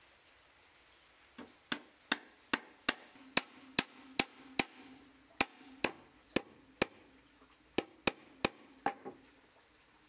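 Wood being struck repeatedly with a hand tool: about seventeen sharp knocks, two to three a second, with two short pauses, each leaving a brief ring.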